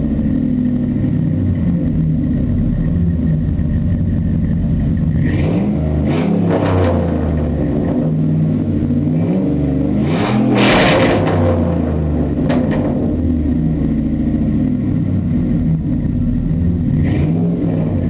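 2001 Dodge Dakota's 4.7-litre H.O. V8 running through a Flowmaster 40 series dual exhaust with no third catalytic converter, idling and revved several times. The longest and loudest rev comes about ten seconds in, with shorter blips before and after it.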